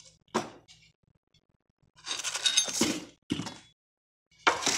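Metal right-angle squares clinking and clattering against each other and the bench as they are handled and set down, in a few short bursts, the longest about two seconds in.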